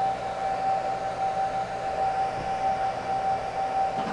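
Panasonic AC servo motor running under its servo drive during a bench test after repair: a steady, unchanging whine at one pitch over a faint hiss.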